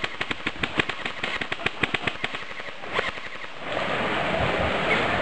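Airsoft guns firing rapidly, a fast run of sharp cracks about ten a second that stops about three and a half seconds in. After it comes a steady rushing hiss.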